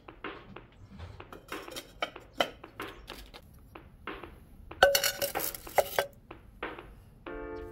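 Terracotta clay pots knocking and clinking against one another as they are handled. About five seconds in comes a louder run of ringing clinks. Music starts near the end.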